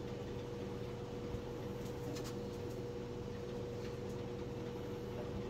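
Steady electrical hum of a running kitchen appliance, with a constant mid-pitched tone. A few faint light clicks come from hands working crescent dough on a wooden cutting board.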